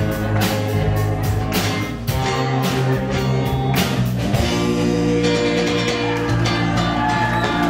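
Live band playing loud: electric guitar chords over a drum kit, with steady drum and cymbal hits.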